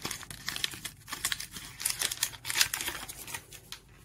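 Plastic wrapper of a basketball trading card pack crinkling in irregular bursts as it is ripped open by hand.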